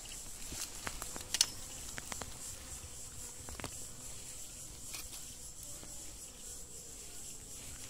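Steady high insect drone with scattered light clicks and crackles; the sharpest click comes about a second and a half in.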